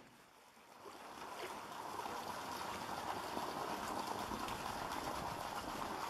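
Steady running water in a polar bear's zoo pool, fading in over the first second or so.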